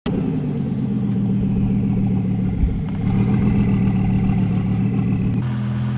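BMW 520d's four-cylinder diesel engine idling roughly, its tone shifting a little about five seconds in. The owner traces the rough idle to a faulty fuel quantity control valve.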